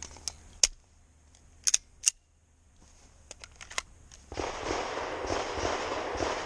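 Handgun being loaded and made ready: a string of sharp metallic clicks and clacks from the magazine going in, the slide being racked and the gun being holstered, the loudest about half a second and two seconds in. From about four seconds in, footsteps rustling through grass.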